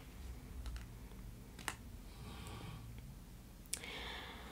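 Faint handling of tarot cards: a few short, sharp clicks as long fingernails tap the card edges, with soft brushing as the cards are touched.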